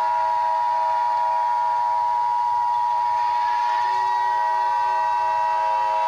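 Emergency-alert alarm tone: a loud, steady horn-like chord of sustained tones, with a rising sweep in the middle, cutting off abruptly at the end.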